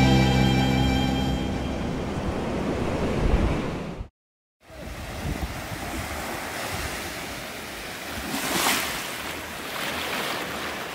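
A rock song fading out, then, after a brief gap, small waves washing up a sandy beach with wind noise on the microphone; a wave surges in louder about nine seconds in.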